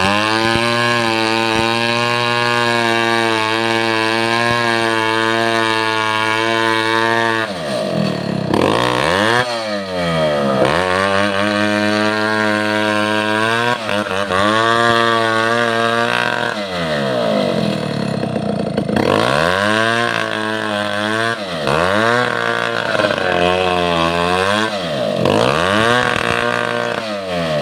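Two-stroke chainsaw engine running at a steady high speed, then over and over dropping in pitch and climbing back as its engine speed falls and recovers.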